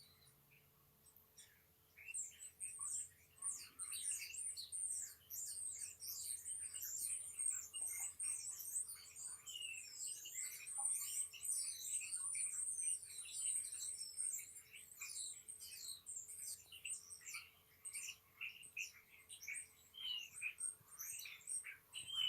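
Small birds chirping, a dense run of high, quick, downward-sweeping chirps that starts about two seconds in and carries on throughout. A faint steady hum lies underneath.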